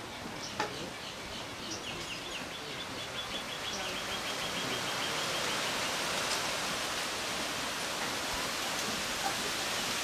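A small bird calls with a quick run of short, evenly spaced chirps through the first half, over a steady hiss that grows louder about halfway through. A single sharp click comes just after the start.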